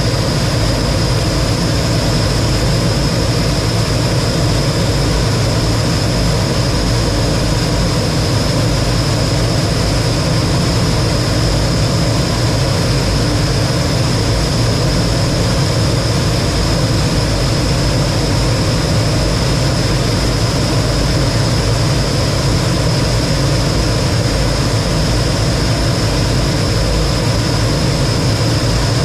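Lockheed T-33 jet trainer's single turbojet engine running steadily, a constant high whine over a heavy low rumble and rushing noise.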